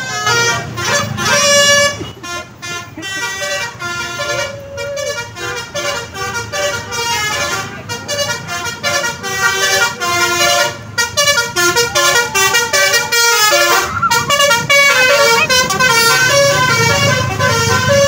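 A bus's basuri multi-tone musical horn playing a quick melody of short notes that step up and down, with a brief break about two-thirds through. Engine and traffic noise run low beneath it.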